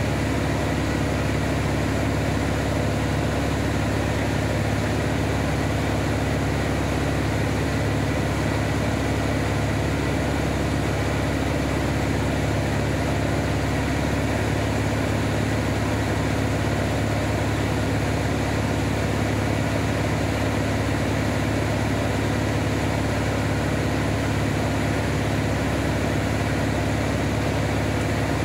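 Van's RV-7A light aircraft's piston engine and propeller running steadily in flight: an even, unchanging drone with no rise or fall in pitch.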